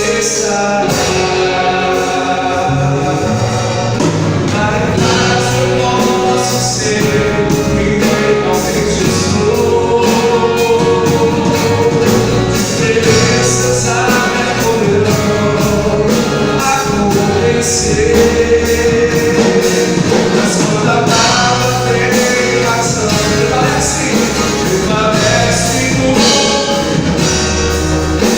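Gospel band playing a worship song, with singing over a steady drum beat.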